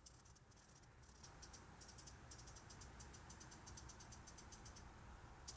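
Near silence: room tone, with faint, rapid, light ticking through the middle.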